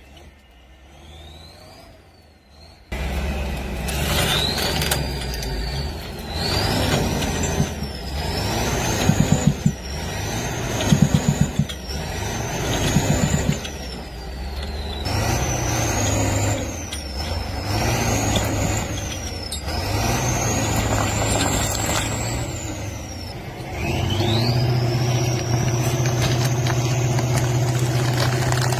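Heavy diesel machine working hard against a tree stump, cutting in suddenly about three seconds in. A high whine rises and falls over and over, and there are a few loud cracks around the middle. Near the end the engine climbs to a higher, steadier pitch under load.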